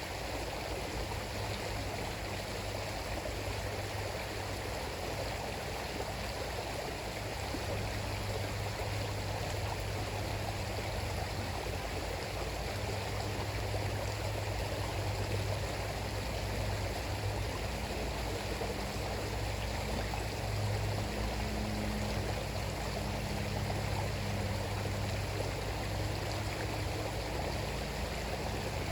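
A river flowing: a steady, even rush of running water with a low rumble underneath.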